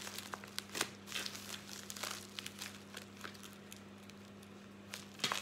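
Crinkling and rustling of a white plastic bubble mailer being handled and picked open by hand, with scattered sharp crackles. A faint steady low hum lies underneath.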